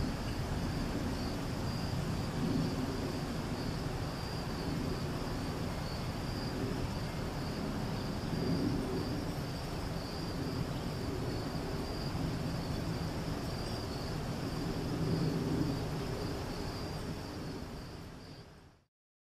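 Outdoor ambience of crickets chirping steadily, a constant high insect drone, over a low wavering rumble. It all fades out near the end.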